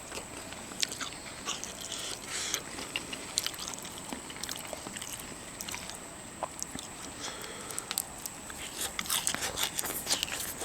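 A person chewing and biting food close to the microphone, with many small, irregular clicks and crackles that grow busier near the end.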